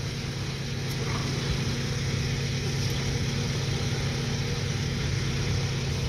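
An engine idling steadily: a low, even running sound that does not change.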